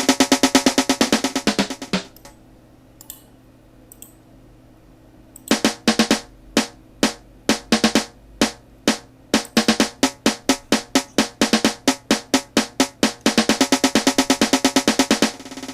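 Sampled snare drum roll programmed in FL Studio. A fast roll stops about two seconds in. After a pause of about three seconds, single snare hits return, spaced apart and uneven in strength, then speed up into a dense roll near the end, like a dance-music build-up.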